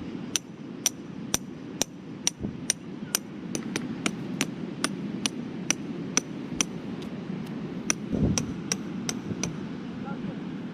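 Steady metallic tapping, about two sharp strikes a second with a slight ring, over a low steady rumble.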